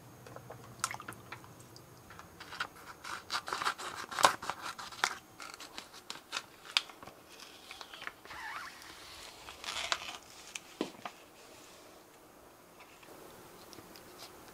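Plastic vacuum pouch of grilled eel being handled and opened: an uneven run of crinkles and sharp clicks, busiest in the middle and dying away near the end.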